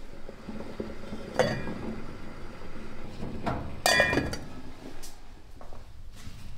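Enamel pot lid clinking on its pot, a ringing metallic clink about four seconds in that is the loudest sound. Two lighter clinks of kitchenware come about a second and a half and three and a half seconds in.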